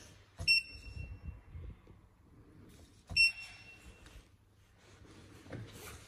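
Video intercom indoor monitor giving key-press beeps as its buttons are pressed: two short, high single-pitch beeps about two and a half seconds apart.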